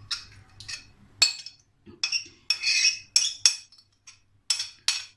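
Steel spoon clinking and scraping against a glass baking dish and a serving plate while trifle is spooned out: a run of irregular clinks and short scrapes, the sharpest about a second in.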